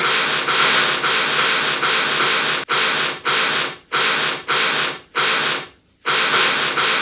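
Casey Jr. cartoon steam engine chugging sound effect: a steady hissing chuff, cut off several times in the second half, the last time into a brief silence before it resumes.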